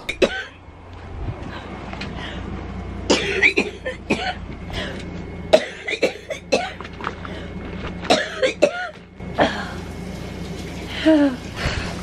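A woman with cystic fibrosis coughing in several separate bouts, the chronic cough of the disease.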